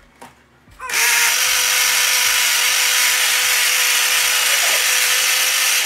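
Personal single-serve blender, its cup pressed down onto the motor base, blending a smoothie. The motor starts about a second in and runs loud and steady at one constant pitch, then stops at the end.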